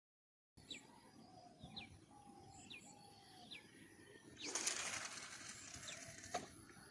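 Birds calling outdoors after a silent first half second: short falling chirps repeat about once a second over low held notes. A louder burst of rustling noise comes about four and a half seconds in, and a single click follows near the end.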